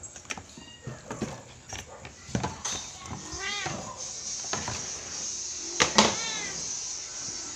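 Domestic cats meowing, with two clear meows about three and a half and six seconds in, among scattered short knocks.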